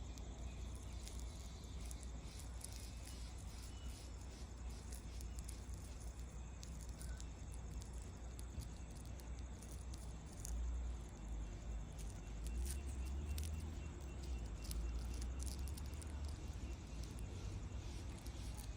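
Tanajura (leafcutter queen ant) making faint, irregular stridulation clicks and chirps over a steady low rumble.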